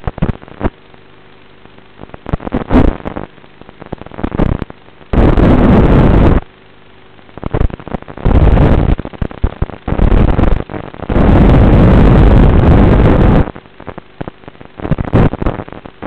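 Analog FPV video link audio: loud bursts of static hiss, the longest lasting a couple of seconds, as the drone's video signal breaks up, with a quieter, choppy buzz between them.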